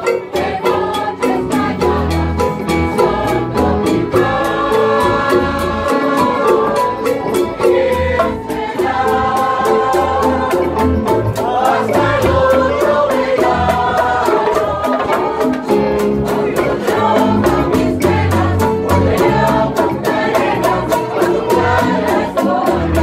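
Live rondalla music: strummed guitars and other plucked string instruments play a steady rhythm under a group of voices singing together, backed by hand drums.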